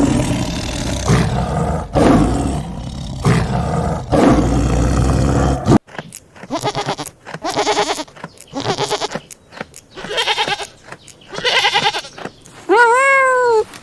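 A sequence of animal calls. A loud, rough, noisy call runs for about the first six seconds and cuts off suddenly. A series of short, wavering, pitched calls follows, and near the end comes one clear call that rises and falls in pitch.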